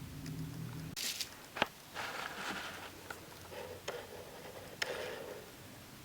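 Packaging and items being handled during unboxing: short bouts of rustling and scraping, with three sharp clicks or taps about a second and a half in, near four seconds and near five seconds.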